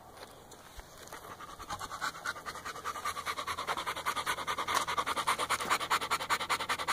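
Dog panting hard with its mouth open in a fast, even rhythm. It starts faint about a second in and grows louder as the dog comes right up to the microphone.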